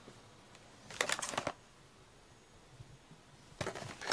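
Toy packaging being handled, rustling and clattering in two short bursts, about a second in and near the end.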